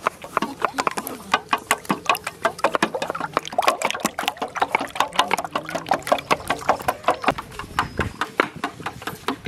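A metal utensil beating raw eggs in a steel bowl, clicking and scraping against the bowl several times a second in a fast, uneven rhythm.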